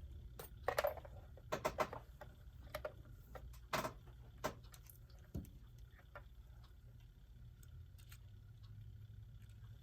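Light clicks and taps of ohm-meter probes and small clock parts being handled while testing a quartz clock movement's circuit. The clicks are bunched in the first five seconds, then only a faint steady low hum remains.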